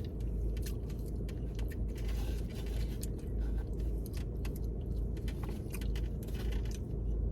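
Small clicks and scrapes of eating from a takeout plate, over the steady low hum of a car interior.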